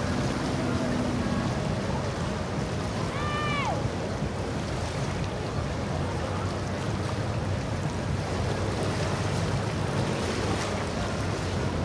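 Steady background of boat engines running and water sloshing, with wind on the microphone. About three seconds in, one short high call rises and then falls in pitch.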